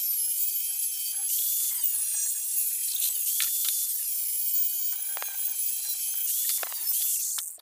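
Handheld electric angle grinder with an abrasive cut-off disc cutting through flat steel: a steady high whine over a gritty rasp, its pitch wavering as the disc is pushed into the cut, with a few sharper scrapes.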